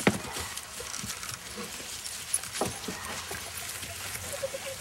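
A horse in harness hitched to a light two-wheeled cart: scattered hoof knocks and harness clinks, with one sharp click right at the start.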